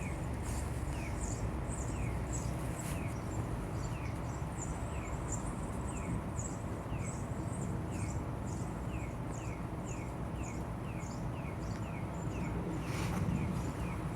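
A steady series of short, high, falling chirps, about two a second, from a small animal, over a low steady outdoor rumble.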